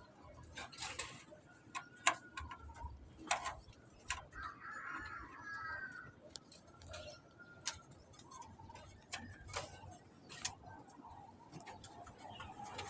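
Irregular light clicks and taps of handwork on a homemade bird cage, with a brief warbling, squeaky sound about five seconds in.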